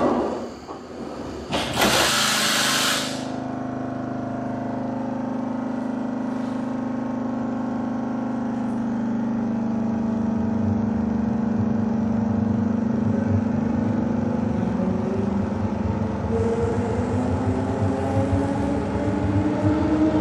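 Berlin S-Bahn class 485 electric train pulling away from a station, heard inside the passenger car: a door knock at the start, a short loud burst of compressed-air hiss about a second and a half in, then a steady electric hum that becomes a whine rising in pitch over the last few seconds as the train gathers speed, with rumble from the running gear growing.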